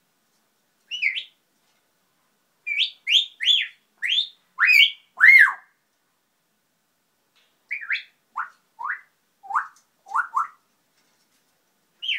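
African grey parrot whistling and calling in short, sliding notes. A quick run of rising and falling whistles comes a few seconds in, the loudest a falling note. After a pause comes a string of short downward whistles.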